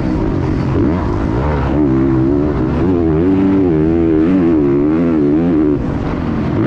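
Motocross bike engine racing under load, heard close from a camera on the bike. Its pitch rises and falls again and again as the throttle is worked, with a brief drop near the end.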